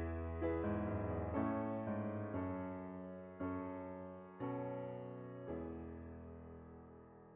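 Background piano music: slow chords struck about once a second, each fading away, the last one near the end left to ring out and die down.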